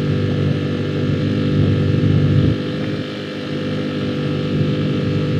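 Mercury 6 hp four-stroke outboard, a single-cylinder engine built by Tohatsu, running steadily at speed under load with a drone that swells and eases slightly.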